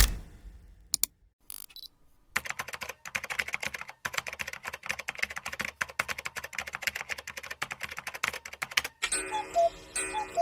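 A sharp hit and a few clicks, then rapid, irregular key clicks of typing on a keyboard for about six and a half seconds. Near the end a different effect takes over: ticking with short pitched tones.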